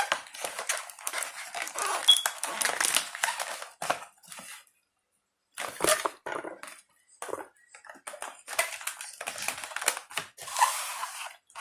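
Toy packaging being handled and torn open, crinkling and tearing in irregular bursts, with a pause of about a second partway through.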